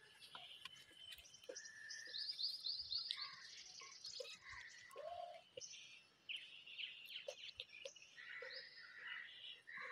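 Birds chirping and twittering faintly, with quick trilled runs of high notes.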